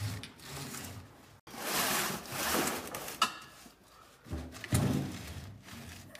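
An all-steel gas tank scraping and sliding across a concrete floor as it is dragged out from under the forklift, in several rough pushes, with a few knocks near the end.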